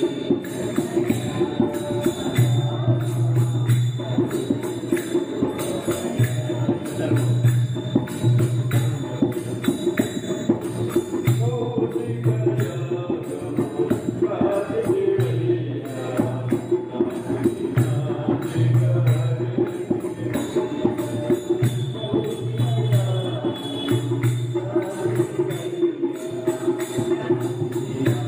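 Background music with fast, steady percussion, a low note that pulses on and off every second or two, and a wavering melody above.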